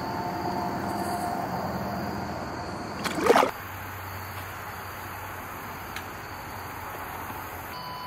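A smallmouth bass splashing once, loudly and briefly, about three seconds in as it kicks out of the hand and back into the creek water.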